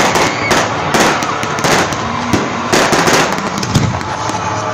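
Aerial fireworks going off close by: an irregular run of sharp bangs, two or three a second, over steady crackling.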